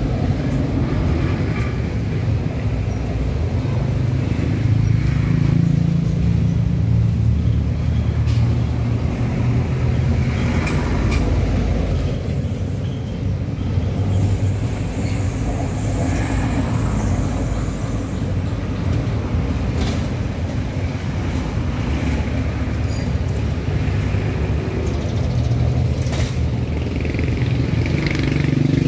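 Steady low rumble of nearby motor traffic running throughout.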